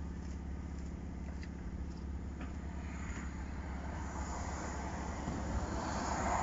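A car driving past, its tyre and engine noise swelling through the second half and loudest near the end, over a steady low hum.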